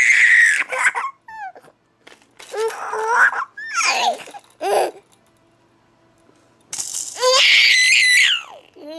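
A baby laughing and squealing in bursts of high, gliding giggles, with a pause of a couple of seconds just past the middle and a long loud burst of laughter near the end.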